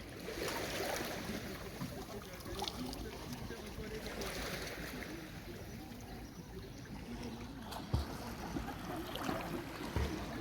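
Sea waves washing onto a beach, rising and falling in slow swells, with a couple of short low thumps near the end.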